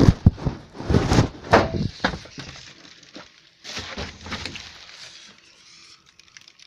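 A cluster of knocks and rattling clatter in the first two seconds, and another short clatter about four seconds in: the cracked plastic rear bumper of a car being handled.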